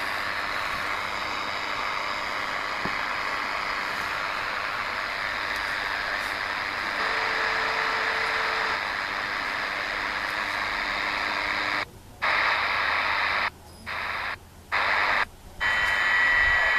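DEGEN DE1103 shortwave receiver giving off steady static hiss with a few faint steady tones in it. About twelve seconds in, the sound cuts out four times briefly while the radio is retuned, then comes back louder on the new frequency.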